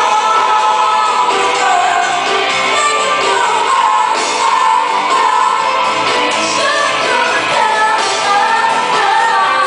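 Live band performing a pop song, with a female lead singer over amplified instruments.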